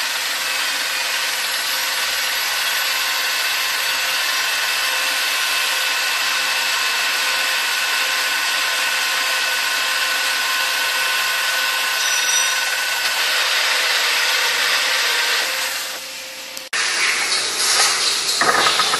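Horizontal boring mill's face-milling cutter cutting metal: a steady hissing grind with faint high whines. It fades after about 16 seconds and gives way abruptly to a louder, rougher hiss.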